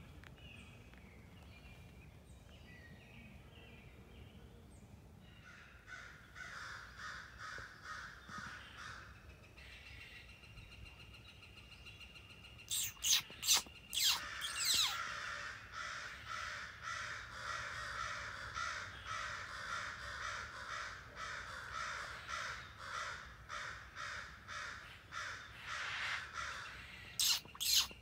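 Crows cawing over and over, faint at first, then loud and crowded from about halfway in, with a few sharp loud calls near the middle and again at the end.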